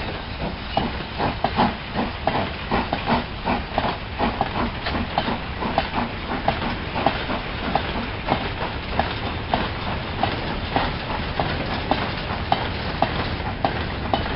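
A long rake of 16-ton mineral wagons rolling past, their wheels clicking over the rail joints about twice a second. Behind it, the Southern N15 King Arthur-class steam locomotive Sir Lamiel hauls the train away, its exhaust steam hissing.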